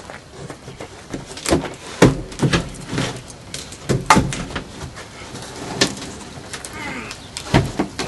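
Knocks and bumps of a large plywood box being tipped over and set down on concrete, about six sharp knocks spread through.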